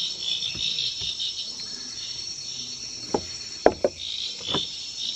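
Rainforest insects, crickets and the like, in a steady high-pitched chorus, with a few sharp knocks about three to four seconds in.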